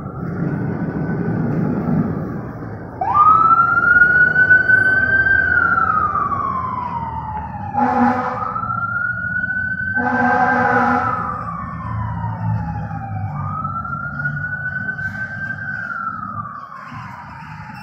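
Fire engine responding: its siren winds up to a wail, then rises and falls in slow cycles about every five seconds. Two horn blasts come about eight and ten seconds in, the second one longer. A diesel engine rumbles as the truck pulls out, and the siren grows fainter as the truck drives away.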